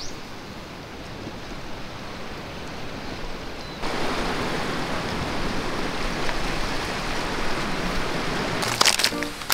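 Steady rushing of sea surf, stepping up louder about four seconds in. A short burst of crackling comes near the end.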